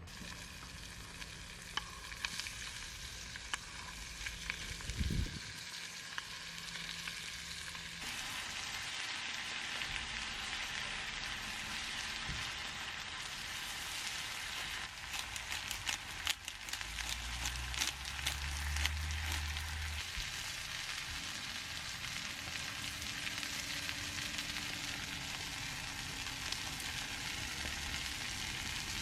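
Food sizzling and frying in a skillet over a campfire: a steady hiss with scattered pops, growing a little louder and busier partway through.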